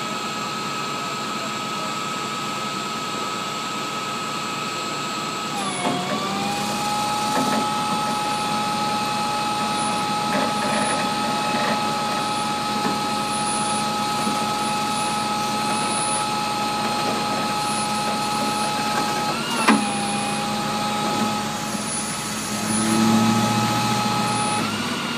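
Flatbed tow truck's winch and hydraulics running under load as a minivan is pulled onto the bed: a steady whine that dips in pitch and gains a second, lower tone about six seconds in, dips again with a sharp jolt about twenty seconds in, and has a louder low rumble near the end.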